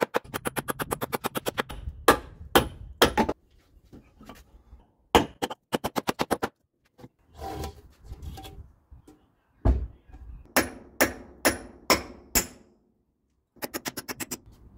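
Claw hammer driving nails into wooden planks: quick runs of blows near the start and near the end, with separate sharp strikes in between, some of them ringing.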